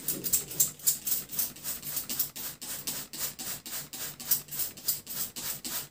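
Plastic trigger spray bottle squeezed over and over, spritzing liquid onto a sponge cake layer to soak it. It makes a quick, even run of short sprays, several a second.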